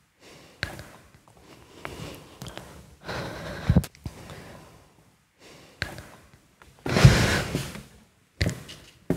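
A woman's heavy, gasping breaths and sighs in irregular bursts, the longest and loudest about seven seconds in.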